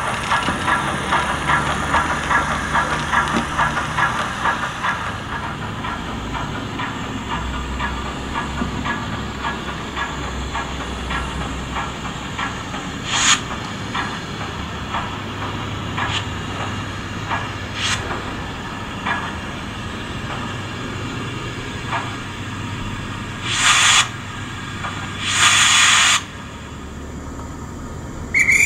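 Recorded steam-locomotive sound from a Zimo DCC sound decoder in a Bachmann OO-gauge LYR 2-4-2T tank engine model, played through its small speaker. It starts with rhythmic exhaust chuffs, which give way to a steadier hiss with a few short sharp hisses. Near the end come two longer, louder blasts of steam, and a short whistle begins at the very end.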